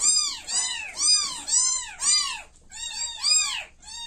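Orphaned kittens about one week old mewing: a string of high-pitched calls, each rising and falling in pitch, about two a second.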